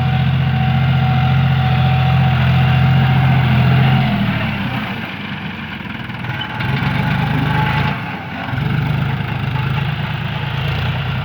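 John Deere 5045D tractor's three-cylinder diesel engine running: steady idle for about four seconds, then the sound dips and wavers unevenly.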